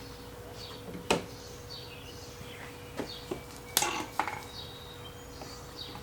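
Sharp taps and clinks of hand tools on metal engine parts: one about a second in, then a quick run of four between three and four and a half seconds.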